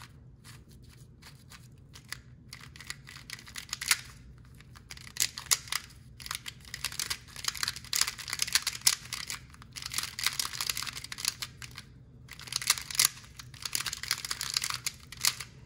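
Angstrom MGC Square-1 puzzle taking its first turns out of the box: runs of rapid plastic clicking and clacking as its layers and slice are turned, starting after about two quieter seconds and broken by a few short pauses.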